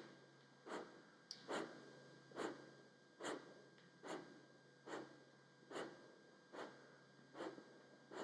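Kapalbhati breathing: short, sharp, forceful exhalations through the nose, about ten evenly spaced puffs a little under a second apart.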